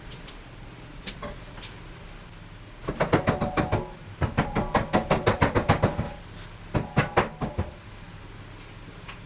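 Rapid metal-on-metal strikes with a ringing tone, about seven a second, in three bursts, with the middle burst the longest: tool work on the car's suspension hardware while the struts come off.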